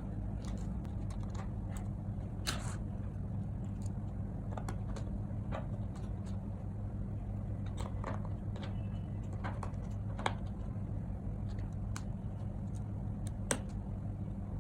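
Faint, scattered small clicks and taps, about a dozen, of parts and a small tool as a replacement audio I/O board is fitted into a MacBook Air M1, over a steady low hum.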